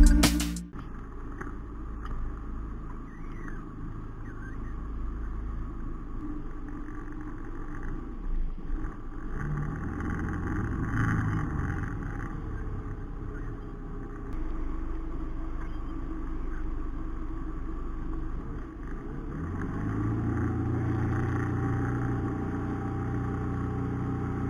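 A Bayliner Capri's 2.3-litre Ford four-cylinder engine with OMC Cobra sterndrive running steadily with the boat under way, over the rush of water. The engine grows louder about twenty seconds in.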